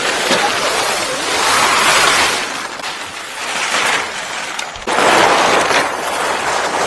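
Green fabric cover rustling loudly as it is grabbed and bunched up close to the microphone. It comes as a noisy hiss that swells and eases, jumping up suddenly about five seconds in.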